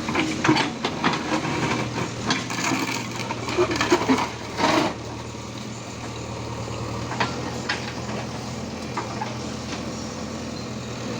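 Diesel engine of a JCB machine running steadily, with irregular metallic knocks and scrapes during roughly the first five seconds, then only a few scattered clicks.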